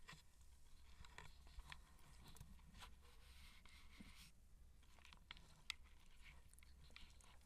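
Near silence: faint scattered clicks and rustles from three-week-old Siamese kittens wrestling on a blanket, over a low steady hum.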